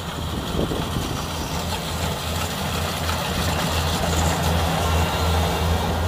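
Kubota DC-60 rice combine harvester running while it harvests, a steady mechanical drone with a low hum that pulses about twice a second, growing louder as the machine comes close.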